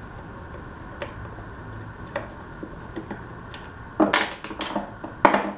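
Light metallic clicks of Torx screws being worked out of a string trimmer's plastic and metal housing. About four seconds in and again near the end, small steel screws and a screwdriver clatter onto a wooden workbench.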